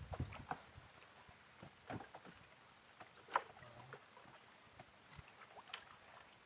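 Faint scattered knocks and clicks from a small wooden boat with light water lapping at the hull; one sharper knock comes a little past halfway.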